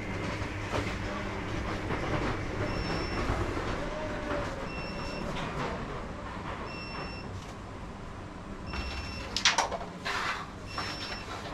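Carrom striker clacking sharply against the wooden board and coins, a quick cluster of hard clicks about three-quarters of the way in with a few lighter ones just after, over a low room murmur.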